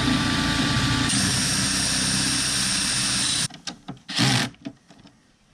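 Electric drill running steadily as a twist bit bores a screw hole through a wooden panel, its tone shifting about a second in, then stopping after about three and a half seconds. A brief whir of a cordless drill/driver follows about a second later.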